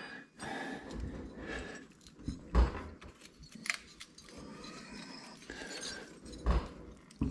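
Scattered light metallic clinks and knocks of engine parts and hand tools being handled, during removal of the push rod tubes from a Harley-Davidson Twin Cam engine.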